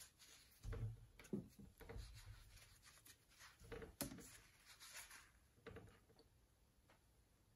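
Faint scattered knocks, taps and rubbing from a painter's brushes and oil-paint palette being handled, a few sharper clicks among them through the first six seconds.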